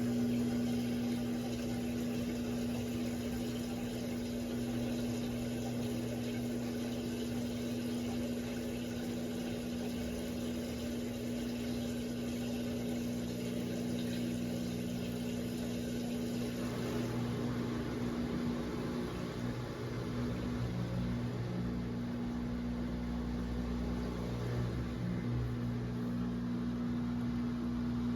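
Electrolux LE06DBD top-load washing machine running with a steady hum. About 17 seconds in, the sound changes: the hiss fades and a deeper rumble comes up.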